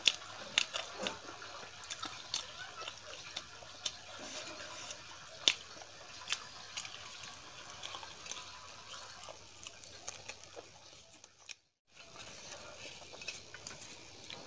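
Close-miked eating sounds: fingers scraping and tapping a stainless steel plate, rumali roti tearing, and chewing, heard as irregular sharp wet clicks and smacks. A brief dropout to silence near the end.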